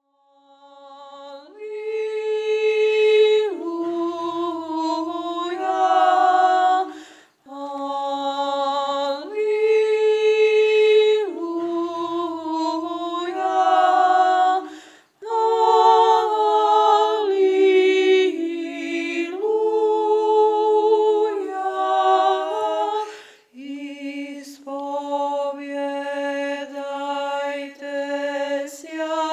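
Unaccompanied church chant: sung voices holding long, steady notes in phrases of about seven to eight seconds, each broken by a brief pause.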